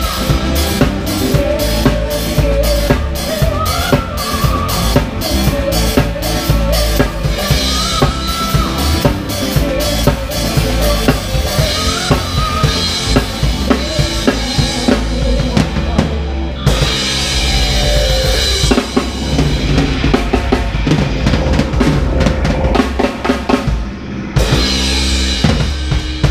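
Live band playing a song, heard from right beside the drum kit: close, loud kick, snare and cymbals, with bass and a singer's voice carrying the tune over them. The cymbals drop out briefly twice, about two-thirds of the way through and near the end.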